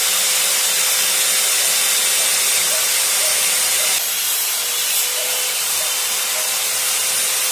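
Electric circular saw mounted upside down under a plank, running steadily with a constant whine while a laminate-faced board is fed across the blade, cutting a groove for a continuous cabinet handle.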